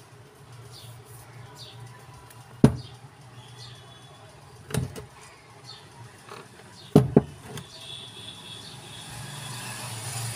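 Sharp metallic knocks as the laminated steel field coils of a demolition hammer are handled and set down on a workbench: single knocks about two seconds apart, then a quick double knock, over a steady low hum. A hiss rises near the end.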